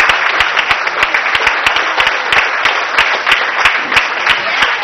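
A crowd of party guests applauding, many hands clapping at once without a break.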